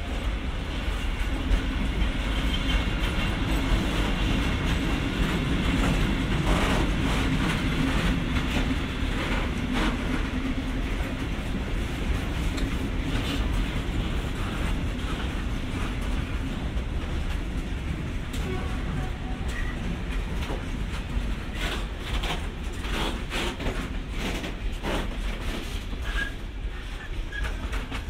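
Freight train of high-sided open wagons rolling slowly past, with a steady low rumble of wheels on rail. A run of sharper clacks over the rail joints comes in the second half.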